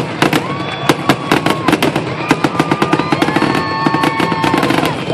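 Fireworks display: a rapid, continuous string of bangs and crackles from bursting shells. Several long, steady whistle-like tones sound over the bangs.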